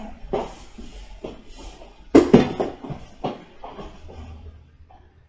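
A string of short, sharp knocks and shuffles as a toddler crawls and bumps about on a yoga mat, the loudest about two seconds in.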